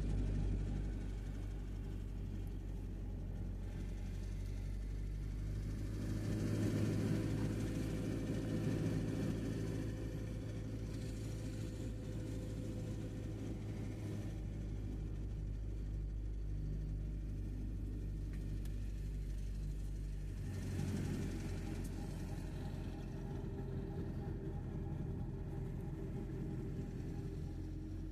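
Engine and road noise of a moving vehicle heard from inside its cabin: a steady low hum that swells a little about six seconds in and again around twenty-one seconds.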